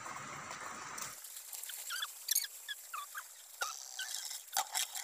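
A Beyblade spinning top whirring on the plastic floor of a basin. About a second in, the sound changes abruptly to scattered short, high squeaky chirps with a couple of sharp clicks.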